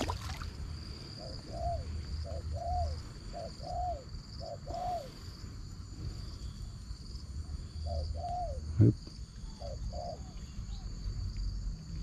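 Insects trilling steadily at a high pitch, with an animal giving short rising-and-falling hooting calls in quick runs of several. A single sharp knock sounds about three-quarters of the way through, over a low rumble.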